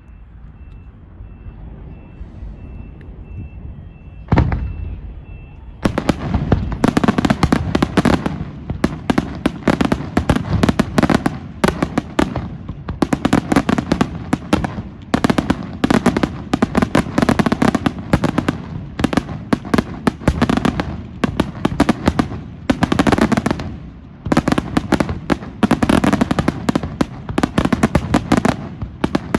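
Fireworks: a single bang about four seconds in, then from about six seconds a dense, continuous barrage of rapid sharp bangs and crackles.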